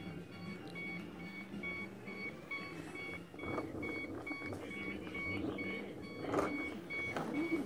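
Hoverboard's low-battery warning: a short high beep repeating a little over twice a second, the sign that the battery needs charging. Under it runs a low hum, with a few brief knocks.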